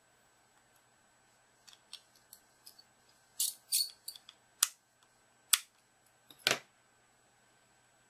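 Precision screwdriver turning a tiny screw into a Samsung GT-S7560 phone's circuit board and plastic frame: a run of small ticks and scrapes, with a few sharper clicks in the second half.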